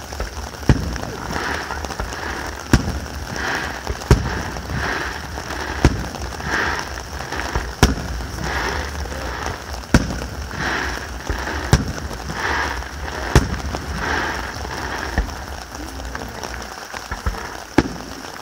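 Fireworks display: aerial shells going off with a sharp bang every second or two. Between the bangs a noisy hiss swells and fades about once a second.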